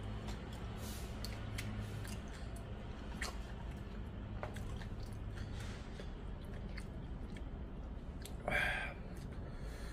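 A person chewing food close to the microphone, with many small wet clicks. Near the end comes a short, louder rush of noise.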